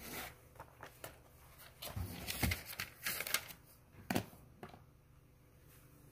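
Handling noise: a scatter of rustles, clicks and a few dull knocks as the speaker moves about with a clip-on lapel microphone on his shirt. It is busiest between two and four seconds in and dies away near the end.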